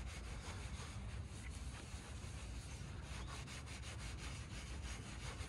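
Scratch-remover compound being rubbed by hand into scratches on a car's black paint: quiet, repeated back-and-forth rubbing strokes.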